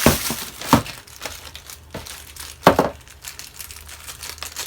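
Packaging crinkling and rustling as it is handled, with a few sharp crackles, the loudest a little before three seconds in.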